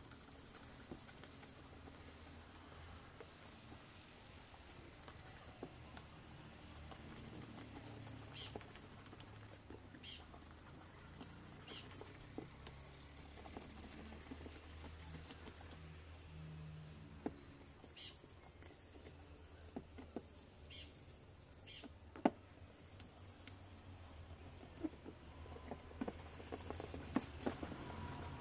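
Stiff plastic brush scrubbing the metal burner frame of a kerosene lamp: faint scratching with scattered light clicks and taps of the brush and metal, the sharpest tap about two-thirds through and more of them near the end.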